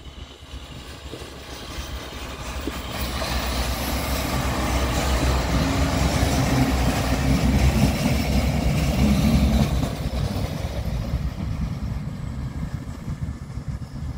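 Class 628 diesel multiple unit passing by: its diesel drone and running noise build as it approaches, are loudest as it goes by, drop off sharply near ten seconds in, and then fade as it moves away.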